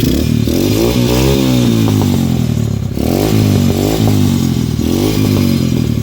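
Apollo RFZ 125cc dirt bike engine running, revved up and down about three times. It has just been started with the choke on after sitting unused for a long time.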